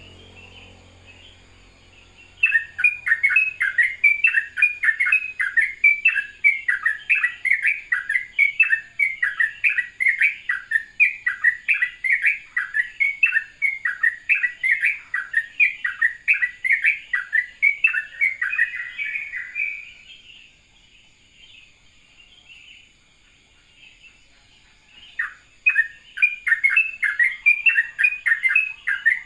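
Yellow-vented bulbul (trucukan) singing a fast, continuous run of short chirping notes, several a second, in the rapid rolling 'ropel' style. The song starts about two seconds in, breaks off for about five seconds after the middle, then starts again near the end.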